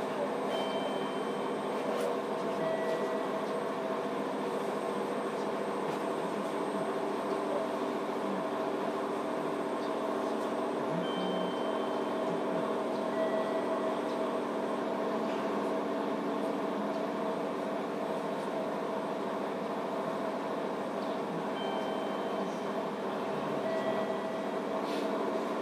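Steady interior hum of a JR Kyushu 305 series electric train car standing before departure, with several steady tones and no motor whine rising or falling. Faint short high beeps come in pairs about every ten seconds.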